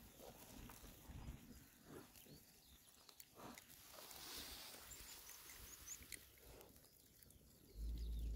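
Oxford Sandy and Black piglets rooting and grazing in the grass, with faint, short grunts here and there. A low rumble on the microphone starts near the end.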